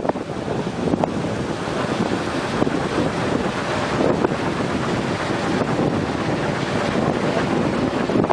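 Strong wind blowing over the microphone, a steady rushing roar with small swells and no pitched sound standing out.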